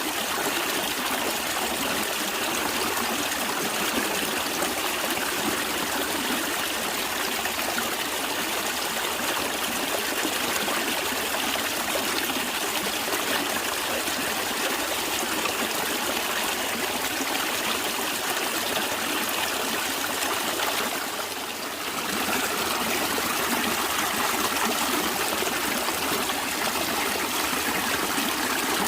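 Stream water flowing and trickling steadily, an even rushing noise that dips briefly about three quarters of the way through.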